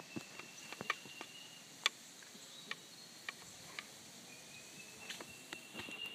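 Faint insect song: a thin, steady high note sounding twice, each time for about two seconds. Scattered sharp clicks and taps sound over it, the loudest about two seconds in.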